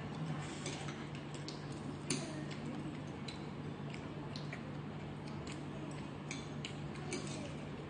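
Metal chopsticks and a fork clicking lightly against each other and a porcelain plate while picking up food: many small, irregular ticks, over a steady low hum.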